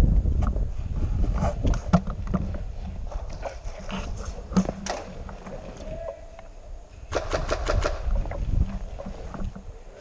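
Footsteps and movement noise crunching through snow, picked up close on a head-mounted camera, with scattered knocks. A short, rapid burst of airsoft gunfire comes about seven seconds in.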